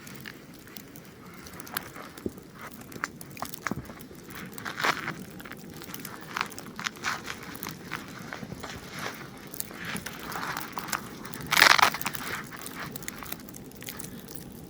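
Irregular crinkling, rustling and crunching of camping gear being handled and steps in snow, with one louder crunch about three-quarters of the way through.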